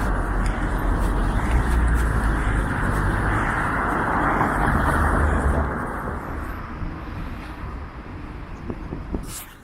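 Road traffic passing close by: a loud rushing noise that fades away after about six seconds, with a short click near the end.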